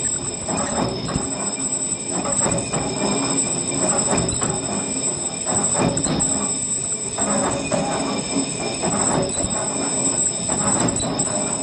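Steel hoist drum of a cable excavator being turned true with a lathe cutting tool while the machine's hoist drive spins it: a rough metallic scraping that pulses every half second or so over a steady high whine. It is the sound of the tool shaving down the drum's uneven surface.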